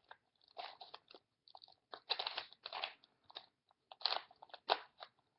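Rubik's Cube layers being turned by hand in quick succession: a run of irregular plastic clicks and scrapes with short pauses between the moves. This is the move sequence that sets the last top-layer edge pieces in order.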